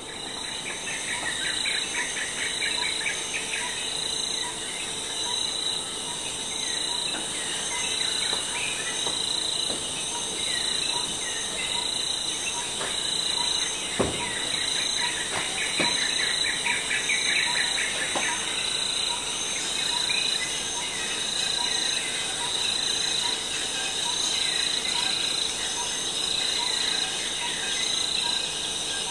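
Tropical forest ambience: a steady high drone of insects with birds chirping over it. A single sharp click about halfway through.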